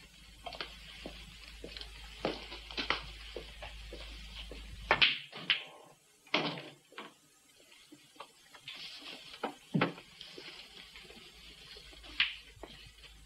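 Scattered sharp knocks and clicks at uneven intervals, the loudest about five, six and a half and ten seconds in, over a low hum that cuts off suddenly about five seconds in.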